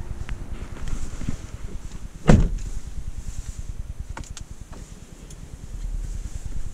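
The DongFeng Forthing T5 EVO's driver's door shuts with one solid thud about two seconds in. A few light clicks follow, and near the end the car's 1.5-litre turbo petrol engine starts, a low rumble coming up.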